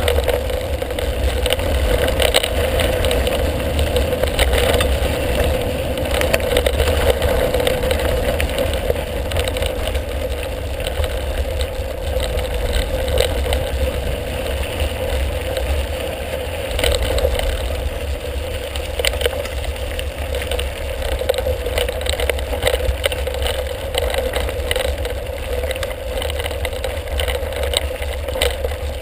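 Mountain bike riding a gravel dirt track, heard from a handlebar-mounted GoPro: steady wind rumble on the microphone, with tyre noise on the gravel and the bike rattling over bumps.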